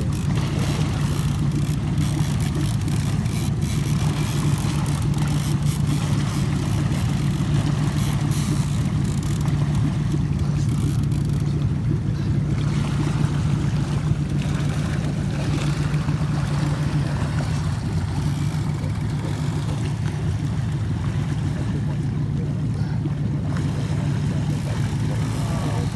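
Boat engine running steadily at a constant pitch, a low drone with water and wash noise over it.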